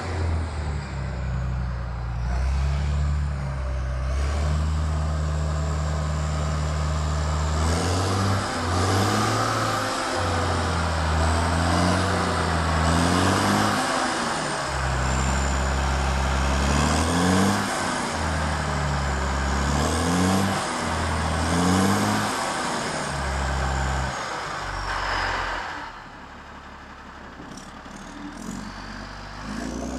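Motor grader's turbocharged diesel engine running, then revved repeatedly, about seven times, with a high turbo whistle that climbs and falls with each rev. Near the end it drops back to a quieter idle.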